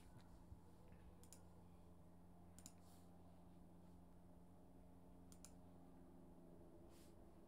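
Near silence with about five faint, scattered clicks from working a computer, as a web page is refreshed and scrolled.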